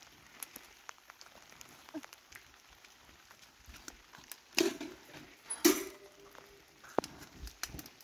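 A lit kerosene heater carried by its wire handle and set down on stony ground: light scuffs and clicks, then two knocks about a second apart past the middle, the second the loudest with a short ring after it, and a sharp click near the end.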